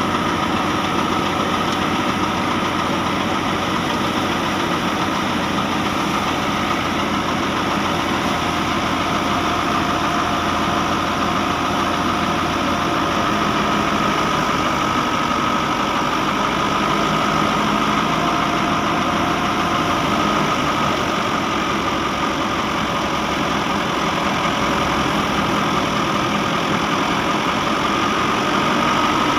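Wheat thresher driven by a Dabang 85 tractor running steadily under load: the tractor engine's drone mixed with the thresher drum's whir and a steady whine, unchanging as sheaves are fed in.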